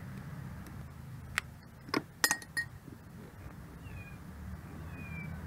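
Pliers working the metal spring clamp on a rubber oil return hose: a few sharp metallic clicks about two seconds in, over a low steady rumble. Faint high falling calls near the end.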